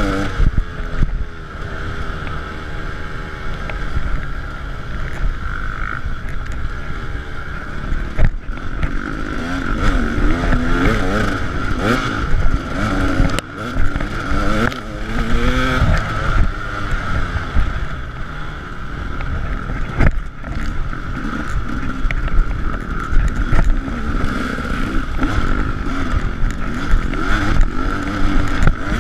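KTM 300 EXC two-stroke single-cylinder dirt bike engine running under load, its revs rising and falling as it rides the rough track. A few sharp knocks stand out over the engine.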